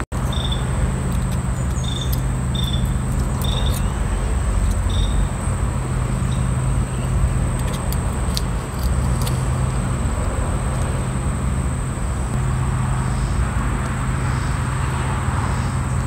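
A steady low mechanical hum from machinery running in the background, with a few light clicks of small carburetor parts being handled.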